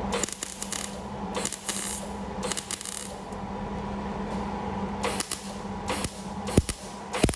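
MIG welder with argon/CO2 shielding gas laying short tack welds on thin sheet steel: several brief bursts of arc crackle and sputter, separated by pauses, over a steady low hum, with a sharp click near the end.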